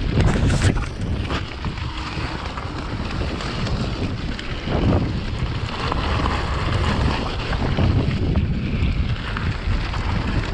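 Wind buffeting the microphone of an action camera on a mountain bike descending a dirt trail, over a steady rumble of tyres on loose rocky ground with a few knocks from the bike.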